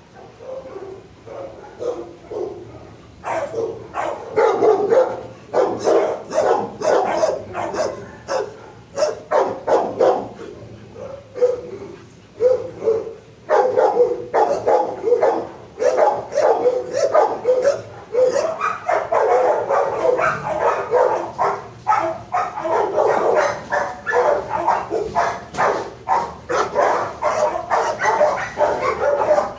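Dogs barking in an animal-shelter kennel block: scattered barks begin about three seconds in and become near-continuous barking from about thirteen seconds on.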